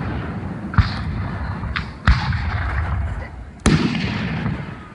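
Aerial firework shells bursting: sharp booms about a second or so apart, the loudest about two seconds in and just before the end, each trailing a rolling echo, with a thinner crack between the first two.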